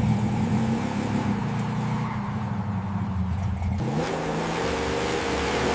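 Car engine running, its pitch shifting a little before four seconds in and then rising slightly, like a light rev.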